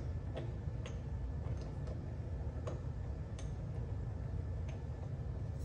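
Sparse, irregular light metallic clicks over a steady low hum, as a flywheel puller is being fitted to a two-stroke dirt bike engine's flywheel.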